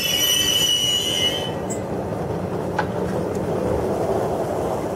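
A TGV high-speed train rolls slowly along the platform. A high steady squeal cuts off about a second and a half in, leaving the steady rumble of the wheels on the rails.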